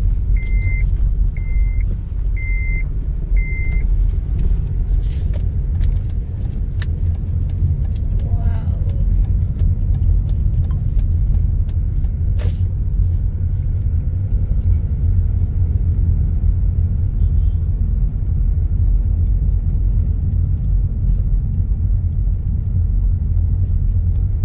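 Steady low road and engine rumble heard inside a moving car. In the first few seconds a short high electronic beep repeats about once a second, four times, then stops.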